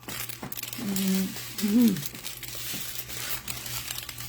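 Small plastic bags of diamond-painting drills crinkling as they are handled and sorted, with a short murmured voice sound in the middle.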